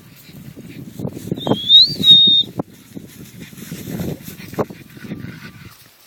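Dogs, with one high tone that wavers and then holds steady for about a second, about a second and a half in, over low rustling and a few sharp clicks.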